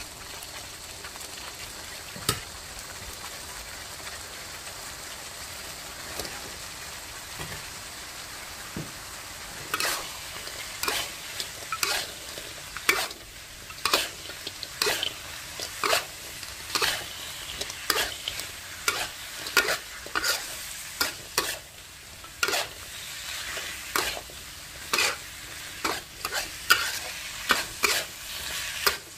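Sauce sizzling steadily in a wok. From about ten seconds in, a metal spatula scrapes and knocks against the wok over and over, one or two strokes a second, as fried chicken pieces are tossed in the thick sweet and sour sauce.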